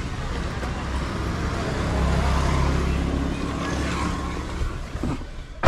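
A motor vehicle passing: engine and tyre noise that builds to a peak about two to three seconds in, then fades.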